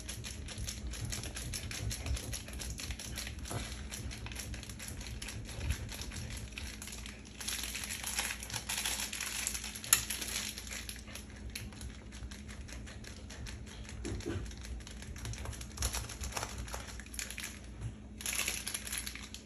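Block of cheese being grated on a stainless-steel box grater: quick, repeated rasping strokes against the metal, harder for a few seconds about halfway through and again near the end.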